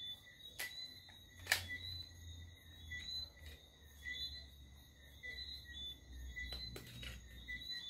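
A few sharp plastic clicks and knocks as a pistol-grip RC radio transmitter is handled, the loudest about one and a half seconds in. Crickets chirp steadily in the background.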